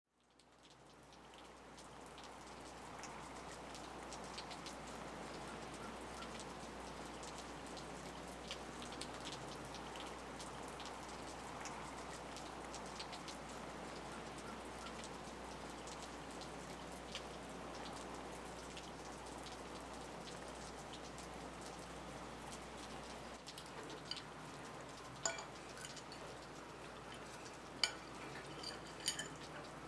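A steady, rain-like patter fades in over the first few seconds and runs on underneath. Near the end a fork and knife clink sharply against a ceramic plate a few times, the loudest sounds.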